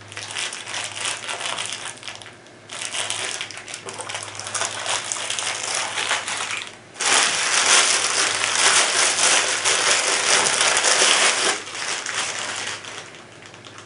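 Clear plastic packaging crinkling and rustling as it is handled and unwrapped. It grows loudest for about four seconds from roughly seven seconds in, then dies away.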